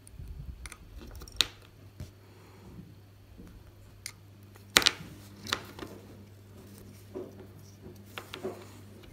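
A craft knife cutting and scraping the insulation off short red and black wires on a power connector, a series of sharp clicks and small scrapes.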